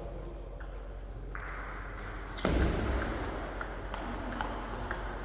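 Table tennis ball clicking sharply off the bats and table during a rally, a tick every half second or so, with a louder thump about halfway through and the hall's echo behind.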